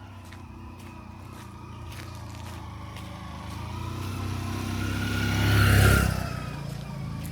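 A motor vehicle engine passing close by: it grows steadily louder to a peak about six seconds in, then falls away quickly.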